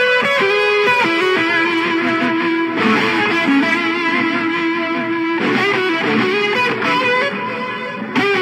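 Isolated overdriven electric lead guitar track played through a Soldano SLO-100 amplifier, a melodic line of long held notes that slide and bend between pitches.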